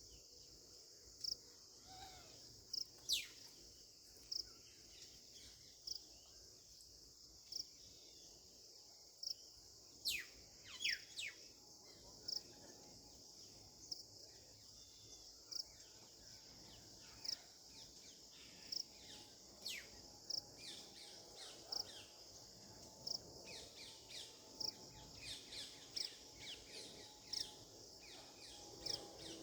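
Steady high-pitched insect drone, with a short note repeating every second or so, and scattered quick, sharp bird chirps that come more often in the second half.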